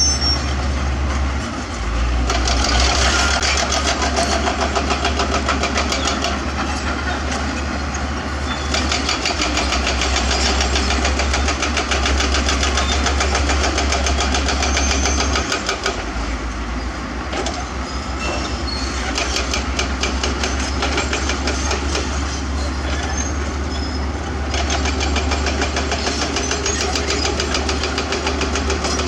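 Diesel engines of heavy earthmoving machines (excavators and bulldozers) running steadily with a fine rapid clatter. The engine note shifts several times as the load changes.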